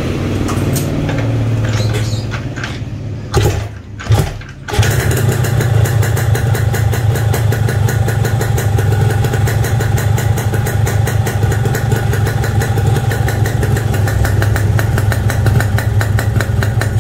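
Yamaha RX-King two-stroke single running through a CB16 'knalpot cebong' expansion-chamber exhaust. About two seconds in it fades and sputters out with two short coughs, then catches again about five seconds in and idles steadily with a fast, even beat.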